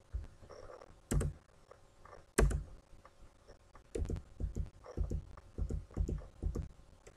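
Computer keyboard typing: two loud single keystrokes in the first few seconds, then a run of keystrokes at about three a second from about four seconds in.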